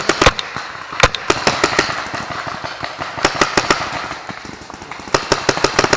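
Paintball markers firing: several quick strings of sharp shots with short pauses between them.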